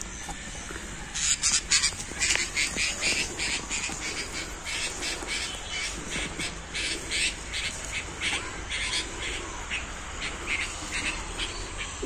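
Birds calling: a run of short harsh calls, several a second, starting about a second in and loudest early on.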